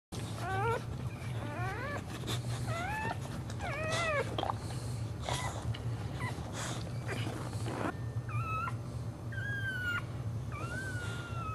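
Dog whining: a run of short, rising whimpers in the first few seconds, then longer, steadier high whines near the end, over a steady low hum.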